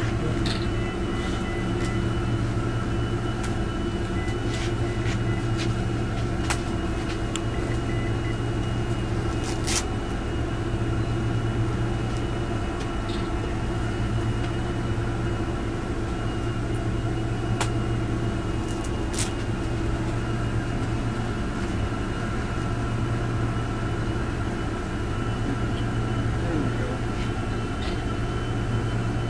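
Steady machine hum holding several constant tones, with a few faint clicks; no gunshot.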